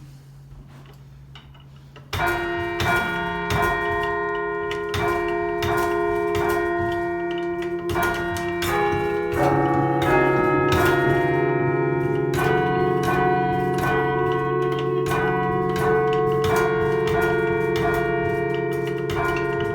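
A chime of thirteen church bells cast by John Taylor & Co of Loughborough in 1939, with a 1504 kg tenor in C, being chimed. It starts about two seconds in, after a faint low hum. Notes are struck one after another a few times a second, each ringing on and overlapping the next as the pitches change.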